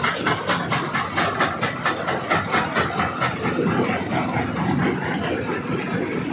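Stone crusher running with a rapid, rhythmic clatter of about four to five knocks a second, over a steady low rumble; the knocking grows less regular after the middle.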